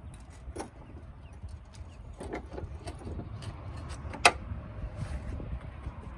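Rummaging through metal odds and ends: scattered clinks and knocks, with one sharp clank about four seconds in.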